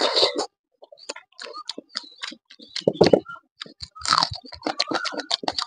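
Mouth sounds of a person eating rice and vegetables by hand: chewing and lip-smacking with many quick, irregular wet clicks, a few louder ones about three and four seconds in.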